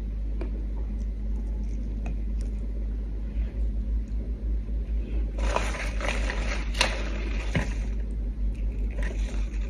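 Soft rustling and crinkling as lettuce leaves and food are handled by hand, with a few light clicks, over a steady low hum. The rustling grows louder about halfway through.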